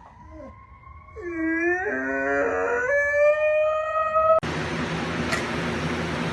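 A dog howling: one long howl that rises in pitch, cut off suddenly about four seconds in, followed by a steady rushing noise.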